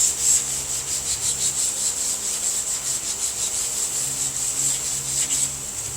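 Sandpaper on a hand sanding block rubbed back and forth over a car body panel, a quick run of scraping strokes at about four or five a second that stops shortly before the end.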